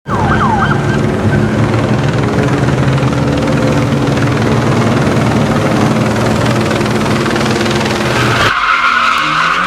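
A car engine running loudly and steadily, with skidding-type noise; about eight and a half seconds in it cuts abruptly to a higher, narrower squealing sound.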